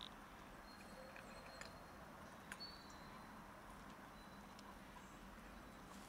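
Near silence: faint outdoor ambience, with a few soft clicks and brief faint high whistles.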